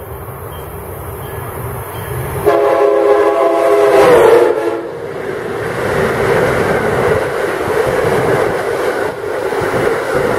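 Amtrak HHP-8 electric locomotive's horn sounding a long warning blast for a trespasser on the tracks. It starts about two and a half seconds in, is loudest about four seconds in, and its pitch drops as the train passes. After that comes the steady rush and clatter of the train going by at speed.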